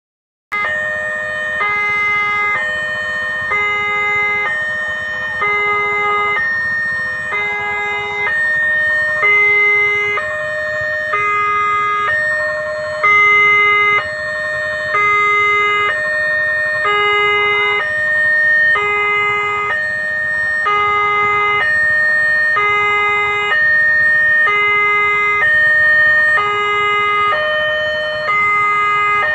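Railway level-crossing warning alarm sounding with the barrier down. It is an electronic two-tone signal, loud and steady, alternating between a lower and a higher note about every half second, which warns of an approaching train.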